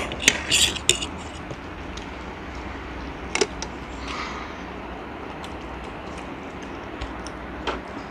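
Eating sounds at a table: scattered sharp clicks and smacks from mouths and forks on a plate, loudest in a short cluster about half a second in, over a steady low hum.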